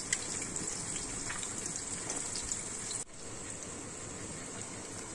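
Chopped onions sizzling in hot oil in a pressure cooker: a steady frying hiss with scattered small crackles, briefly dropping out about three seconds in.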